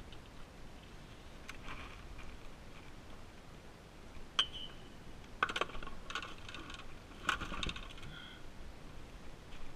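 Scattered light metallic clinks and taps, several ringing briefly, from fishing tackle and the landing net handled in a plastic kayak; the loudest come about four and a half, five and a half and seven and a half seconds in.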